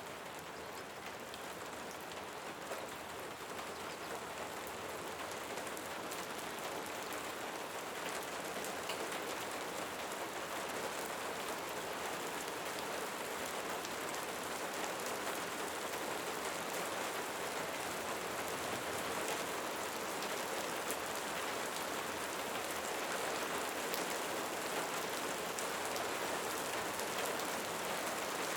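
Light rain falling steadily, a continuous hiss of fine drops with many small individual drop ticks, growing slightly louder over the first several seconds.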